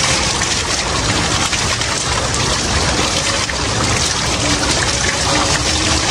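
Water pouring steadily from an outdoor tap and splashing over a person bathing under it.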